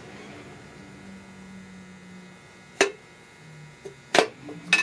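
Steady low hum, then three sharp clicks and knocks in the second half, the sound of tools and engine parts being handled while pulling the connecting rods and pistons from the block.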